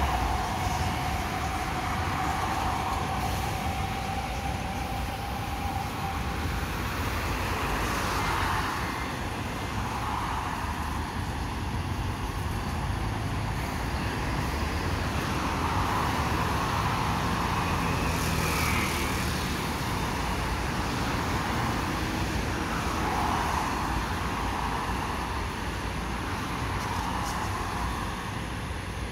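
Road traffic: cars and buses passing one after another, each a swell of tyre and engine noise every few seconds over a steady hum. In the first several seconds a faint whine sinks slightly in pitch, from an elevated metro train running on the viaduct behind.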